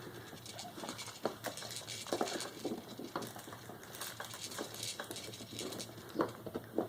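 A dog gnawing on a chew bone: irregular clicks and small crunches of teeth on the bone, several a second.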